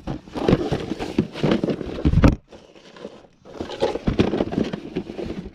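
Rummaging through boxes of stored belongings: objects being shifted, knocked together and set down in an irregular clatter, with one heavy knock a little over two seconds in.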